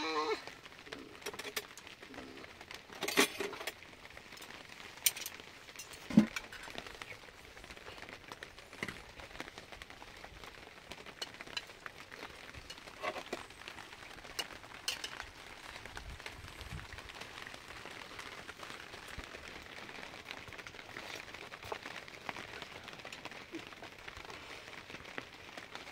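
Spoons clinking and tapping now and then against plates and bowls as people eat, a few scattered sharp clinks over a faint steady background hiss.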